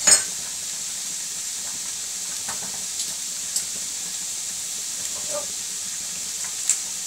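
Steady hiss of chicken, onions and garlic frying in a pan, with a sharp knock right at the start and a few faint ticks later.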